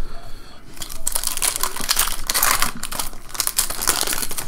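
Shiny 2014 Bowman Draft baseball card pack wrapper crinkling as it is torn open by hand. The crackling starts about a second in and goes on steadily while the wrapper is pulled apart.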